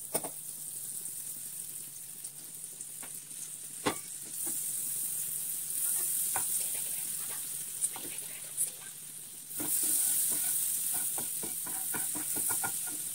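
Butter sizzling as it melts in a hot nonstick frying pan. The hiss grows louder about four seconds in and again near ten seconds, with scattered clicks and scrapes of stirring that come thicker near the end.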